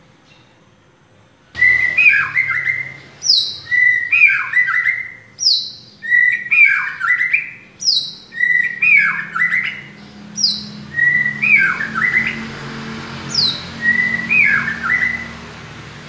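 White-rumped shama (murai batu) singing. About one and a half seconds in it starts repeating one phrase about six times, roughly every two seconds: a high falling whistle followed by a lower note that sweeps up and down.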